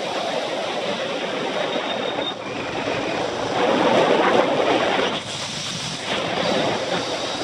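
Wind rushing over the microphone of a camera riding on a fast-moving bicycle, a steady roaring hiss that swells louder about four seconds in.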